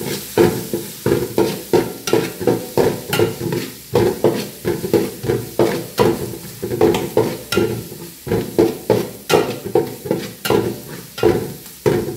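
Steel spatula scraping and stirring crushed ginger and garlic frying in coconut oil in a large aluminium pan, about two strokes a second, the pan ringing with each stroke over a light sizzle.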